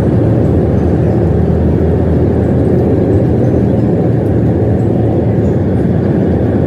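Steady, loud rumble of a jet airliner heard from inside the passenger cabin while it rolls along the ground: engine noise mixed with wheel and airframe rumble.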